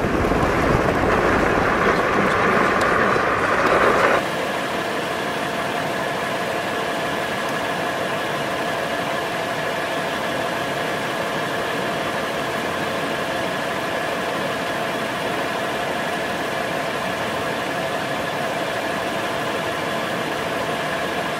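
Vehicle driving, with road and wind noise. About four seconds in, the sound cuts abruptly to a quieter, steady mechanical hum carrying a couple of high, even tones, like a vehicle idling.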